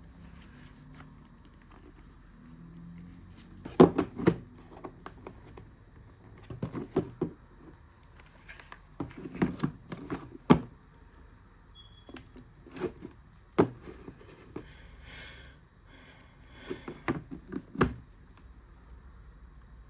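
Irregular clicks, knocks and light thuds from handling a mechanical keyboard and its packaging. They come in short clusters, several seconds apart, with a brief rustle in between.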